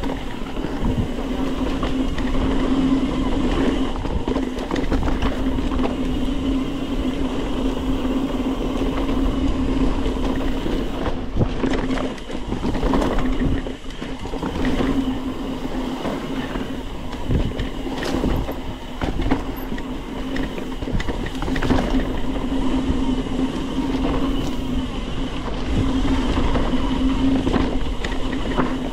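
Mountain bike riding fast down a dirt trail: a steady rolling buzz, with knocks and rattles as the bike goes over bumps.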